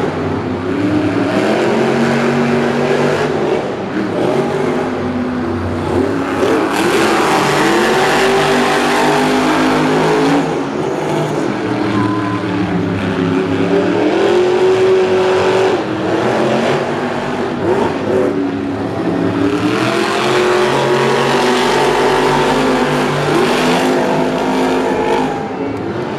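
Monster truck engines revving hard while racing, their pitch repeatedly rising and falling as the throttle opens and closes.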